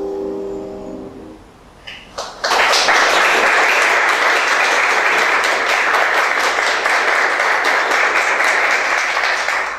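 The last chord of a Yamaha CFX concert grand piano fades out over about a second. After a couple of first claps, an audience breaks into steady applause.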